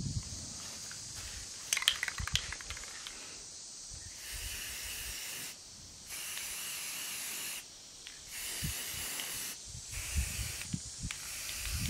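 Aerosol can of white spray paint hissing as it is sprayed, in several bursts a second or two long with short breaks between them, starting about four seconds in. A few clicks come about two seconds in.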